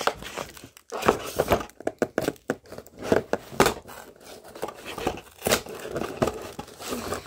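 Cardboard and plastic toy-box packaging being pulled open by hand: irregular crinkling, crackling and tearing, with sharp snaps as the easy-open tabs and flaps give.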